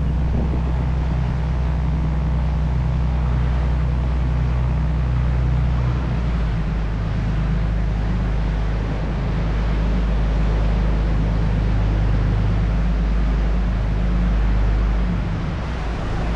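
Sightseeing boat's engine running steadily, a deep hum under a wash of water and wind noise. Its note shifts slightly about six seconds in and eases off near the end.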